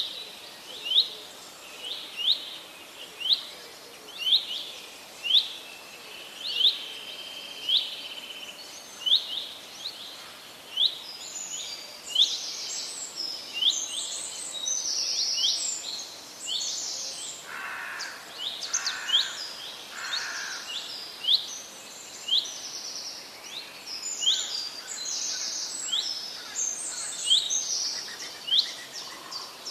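Forest birds singing. One bird repeats a short rising chirp about once a second throughout, and a second bird's higher, busier song joins about a third of the way in.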